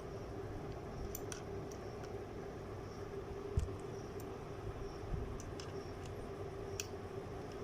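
A few scattered metallic clicks and one sharper knock about three and a half seconds in, from a Torx L-key working a bicycle disc-brake rotor bolt loose, over a steady hum.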